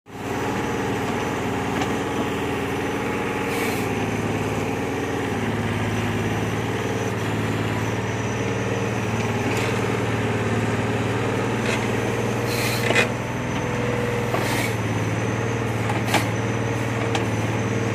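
Mini excavator engine running steadily under load, with a tone that wavers up and down as the arm works. Several sharp knocks or cracks come through as it digs out a bamboo clump.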